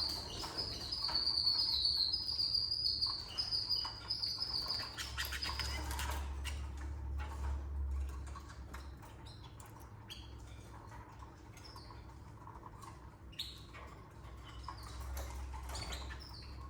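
Canaries in a nest cage: a steady, wavering high-pitched chirping for the first five seconds or so, then rustling, clicks and wing flutters with a low rumble, and scattered light taps after that.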